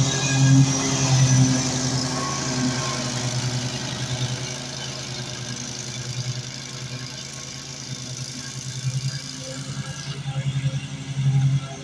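Zero-turn riding mower's engine running steadily under load as it cuts grass, growing fainter over the first several seconds as the mower moves away.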